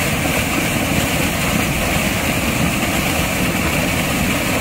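Sea waves surging and breaking against rocks, a steady rushing wash with a low rumble.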